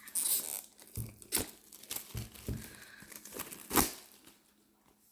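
Packaging on a boxed oracle card deck being crinkled and torn open by hand, in a series of short rips, the loudest near the end, before it goes quiet.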